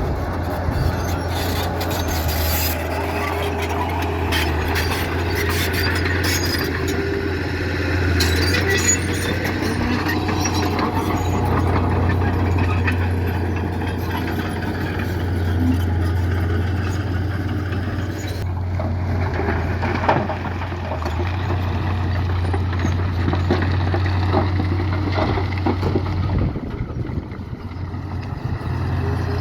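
Heavy diesel construction machinery (bulldozer and dump trucks) running under load: a steady low engine rumble with scattered sharp metallic knocks, easing off briefly near the end.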